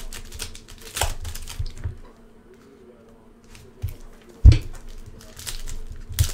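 Foil trading-card pack wrappers being torn open and crinkled by hand, in short crackling rustles. About four and a half seconds in, a single loud thump on the table.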